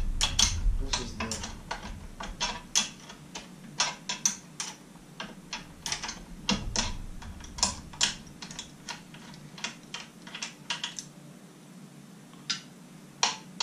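Hand socket ratchet clicking in short, irregular runs as bolts are worked loose; the clicks thin out near the end.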